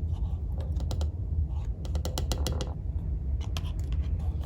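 A kitchen utensil clicking and tapping against a mug in quick clusters as pumpkin puree is scooped in, over a steady low hum.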